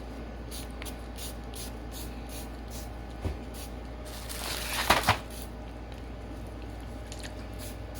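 A spray bottle of rubbing alcohol mixed with hand sanitizer sprays once: a short hiss about four seconds in, ending in two sharp clicks. A soft knock comes about a second before the spray.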